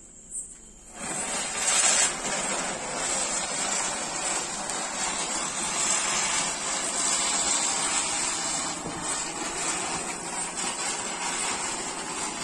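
Ground chakkar (ground spinner firework) spinning and spraying sparks: a steady hiss that starts about a second in and peaks briefly just after.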